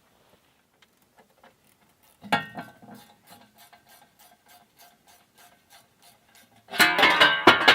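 Hand ratchet wrench clicking steadily at about five clicks a second as a bolt is turned, then a loud metallic clatter near the end.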